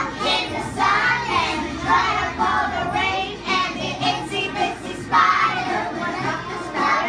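A group of young children singing a song together, in phrases of a second or so with short breaks between them.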